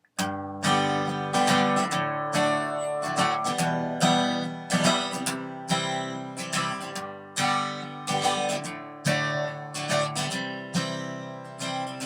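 Instrumental music of a guitar strumming chords, starting just after the beginning.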